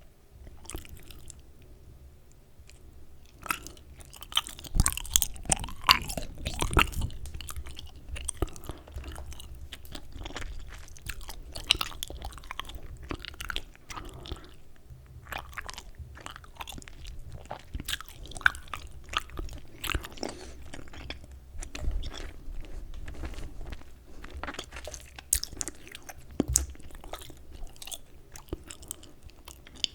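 Close-up chewing gum ASMR: irregular wet smacks, clicks and snaps of gum being chewed.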